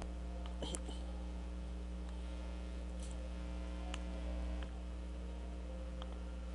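Steady low electrical mains hum with a handful of separate, widely spaced clicks from a computer mouse and keyboard.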